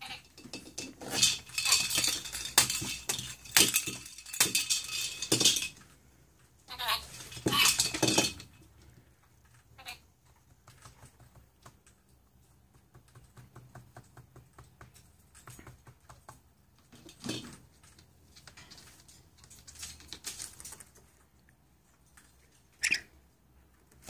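Dusky lory playing with a plastic ball toy on a desk: bursts of clattering and rattling, dense for the first six seconds and again about seven to eight seconds in, then scattered light taps and clicks.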